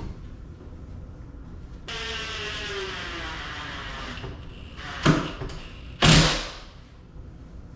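Whirring for about two seconds, sagging slightly in pitch, then two loud knocks about a second apart during cabinet installation work.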